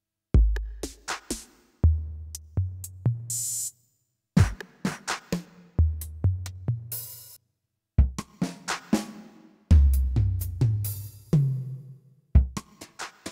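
Yamaha PSR-E403 keyboard playing its preset rhythm patterns: electronic drum-kit grooves with kick, snare and cymbals over a stepping bass line. Each pattern plays for about four seconds, stops briefly, and the next one starts.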